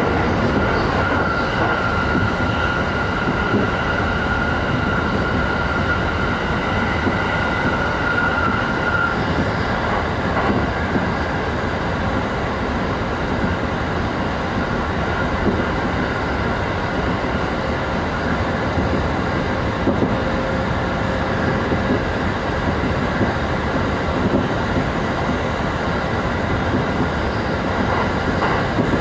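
Commuter electric train running at speed, heard from inside the passenger car: a steady rumble of wheels on rail, with a high steady whine that fades out about nine seconds in and a few faint clicks of the wheels over rail joints.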